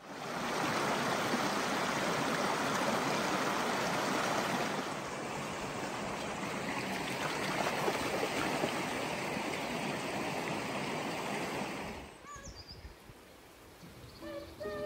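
Shallow stream babbling and rushing over stones, with dogs splashing through the water. About twelve seconds in the water sound stops abruptly, leaving a quieter outdoor background with a few faint chirps.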